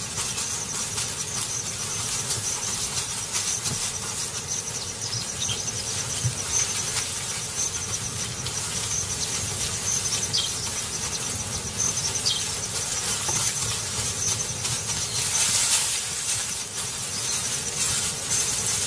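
Grassland ambience: a steady high-pitched insect drone over an even hiss, with a few brief high chirps scattered through it.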